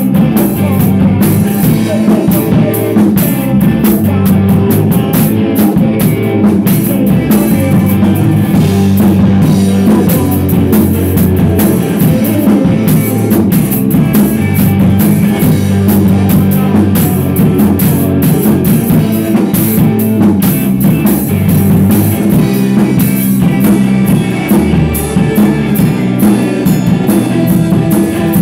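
A rock band playing live: electric guitar and drum kit, loud and continuous.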